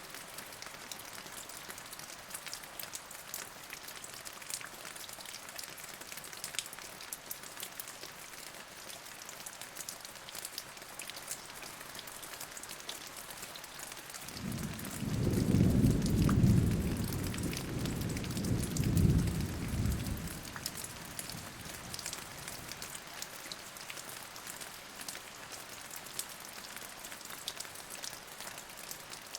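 Steady rain falling, with scattered drips ticking. About halfway through, a low rumble of thunder swells up, peaks, and fades away over about six seconds.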